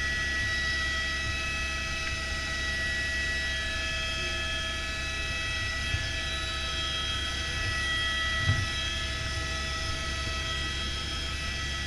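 Helicopter turbine and rotor running steadily in flight, heard from inside the cabin: a steady high whine over a constant low drone. Two small knocks come through, about six and eight and a half seconds in.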